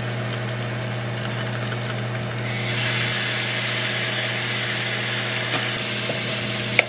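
Raw ground beef sizzling in a hot frying pan. The sizzle swells about two and a half seconds in and holds steady, over the even hum of the microwave running.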